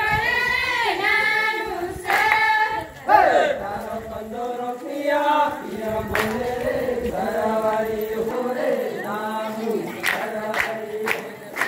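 A group of voices singing an Adivasi garba song together. A few sharp hand claps come through, mostly near the end.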